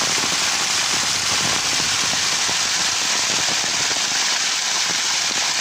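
Heavy rain falling in a steady, even hiss, mixed with the rush of rainwater pouring down a stone wall and running off along the road edge.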